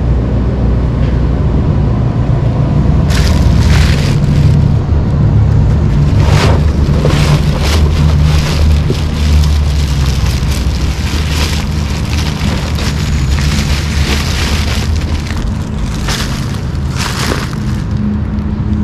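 Dry Cement All rapid-set concrete mix being shaken out of its paper bag into a plastic mixing tub: rustling bag and pouring, gritty mix come and go from about three seconds in until near the end. Under it is a steady low rumble.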